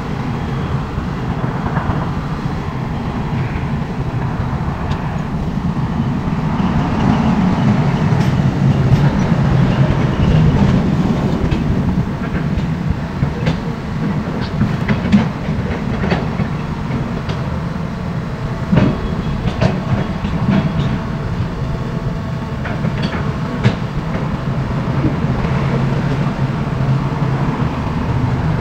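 SANY crawler excavator's diesel engine running under load as it digs wet soil, the rumble swelling for a few seconds as the bucket works, with a few sharp metallic knocks.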